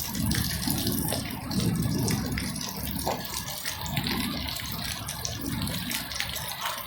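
Water gushing and splashing with a rattling patter. The sound comes in irregular low surges about once a second, with scattered sharp clicks.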